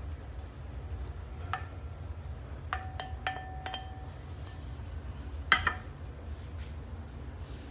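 A wooden spoon knocks and scrapes against a glass bowl as chopped okra is pushed out of it into a metal pot. A few light glass clinks ring briefly about three seconds in, and one sharper, louder knock comes about five and a half seconds in, over a low steady hum.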